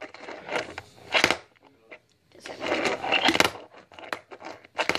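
Tech Deck fingerboard clacking on a wooden tabletop as fingers pop and flick it in repeated trick attempts. There are several bursts of sharp clacks with short noisy scraping or rolling stretches between them.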